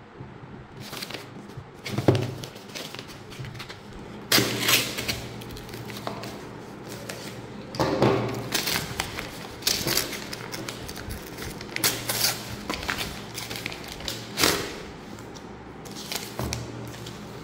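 Product packaging handled and opened by hand: irregular rustling and crinkling with several soft thumps.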